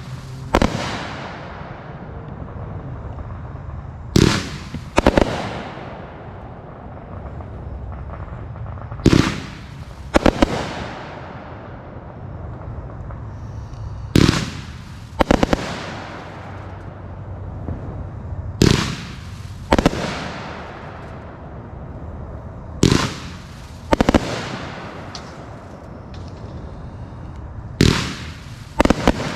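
A 35-shot, 500-gram consumer firework cake going off in volleys: about every four to five seconds comes a pair of loud bangs about a second apart, each followed by a fading crackle and rumble.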